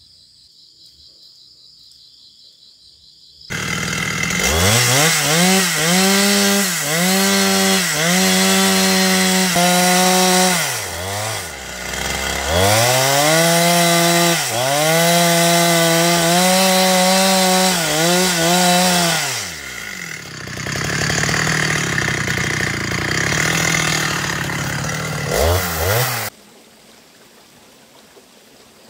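Chainsaw engine revving hard in repeated bursts, its pitch dipping briefly between them. Later it runs rougher and noisier, as if the chain is cutting into wood. It starts suddenly a few seconds in and stops abruptly near the end.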